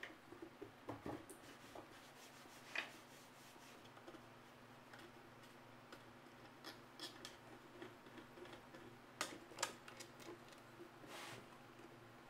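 Faint, irregular small clicks and taps over a steady low hum, sharpest about three seconds in and twice in quick succession near the end.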